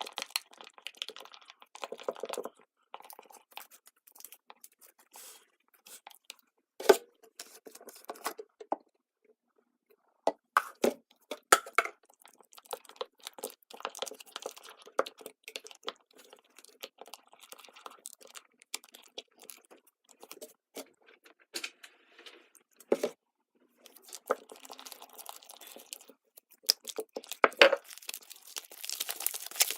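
Fluffy slime being handled and mixed, with irregular sticky clicks, squelches and crackles and a few sharper snaps.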